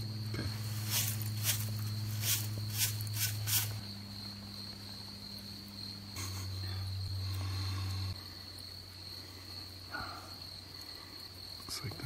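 Crickets trilling steadily, under a steady low hum that shifts pitch twice and stops about two-thirds of the way through. A few sharp clicks sound in the first few seconds.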